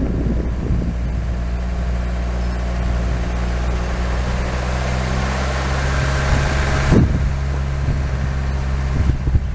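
Car engine running steadily on the move, with a rushing noise that builds for a few seconds and stops abruptly about seven seconds in.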